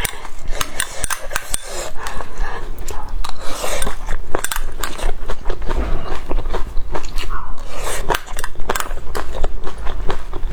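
Close-miked eating: a person biting and chewing food, a dense run of quick clicks and crunches.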